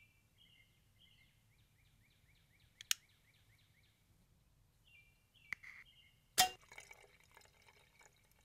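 A songbird chirping in a rapid run of short repeated notes, then a single sharp crack about six seconds in, followed by a brief metallic ringing rattle.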